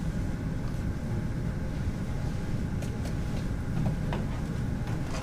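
Steady low rumble of conference-room background noise, with a few faint clicks.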